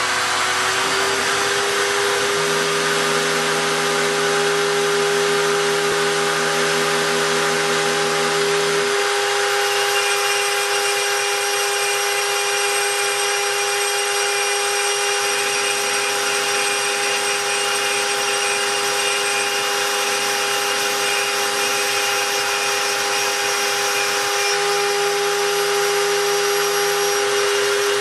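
Home-built CNC gantry milling machine running: the spindle comes up to speed in the first second and then holds a steady high whine. Under it the stepper motors hum, their pitch changing every few seconds as the axes move.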